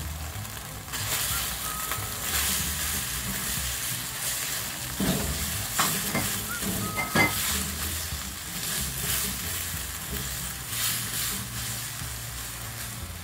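Chopped fresh tomatoes sizzling in a hot nonstick sauté pan with fried onion and garlic while a silicone spatula stirs them. There are a few sharp knocks of the spatula against the pan a little past the middle.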